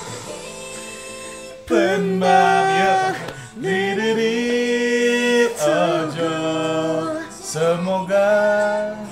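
K-pop girl-group song playing, with female vocals singing long held notes over the backing track. It is softer at first and grows louder about two seconds in.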